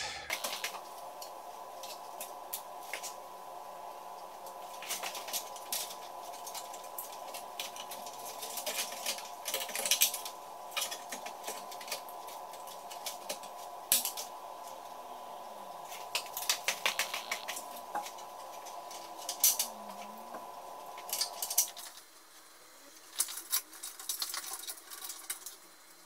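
Irregular clicks and rattles of hard plastic and metal parts and cables being handled and fitted inside a desktop PC case, over a steady hum that stops about 22 seconds in.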